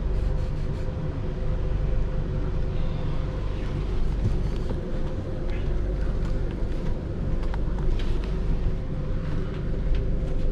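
Belgian Railways Class 96 (AM96) electric multiple unit heard from inside the carriage while running: a steady low rumble from the wheels and track, a constant hum, and occasional light clicks and rattles.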